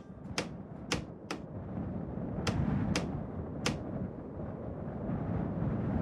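A hammer driving roofing nails into iron roof sheets: about six sharp, unevenly spaced strikes in the first four seconds. Under them a low rushing wind builds from about two seconds in and grows louder toward the end.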